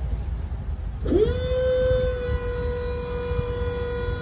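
Truck liftgate's electric hydraulic pump motor starting about a second in, its whine rising quickly and then holding a steady pitch as the platform is raised. A low rumble lies under it throughout.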